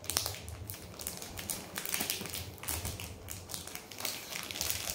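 Plastic gift wrapping crinkling and rustling as a child's hands pull at a wrapped box, in a run of irregular small crackles and taps.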